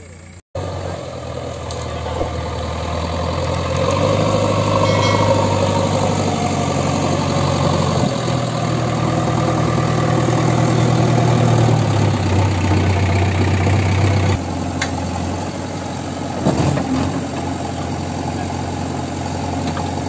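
JCB 3DX backhoe loader's diesel engine running close by, picking up speed and getting louder about four seconds in, then dropping back abruptly about three quarters of the way through. A few knocks sound shortly after.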